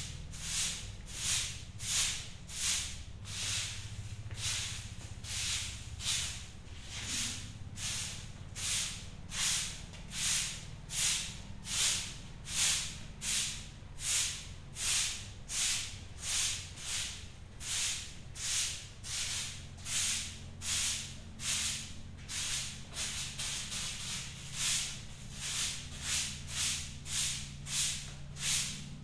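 Short-handled broom sweeping a concrete floor: a steady run of swishes, a little under two strokes a second, quickening near the end.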